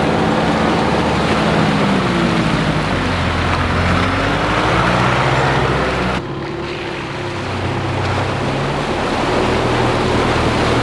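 Four-wheel drive's engine revving up and easing off over and over while driving a bush track, with tyre and wind noise. The sound changes abruptly about six seconds in.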